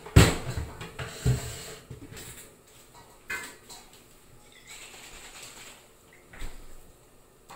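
Household knocks and clatter from someone moving about a kitchen: two sharp knocks in the first second and a half, then fainter scattered knocks and handling noises.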